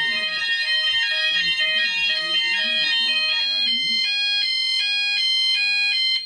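Background music with stepping melodic notes over a steady high-pitched electronic tone. The music cuts off suddenly near the end while the steady tone carries on.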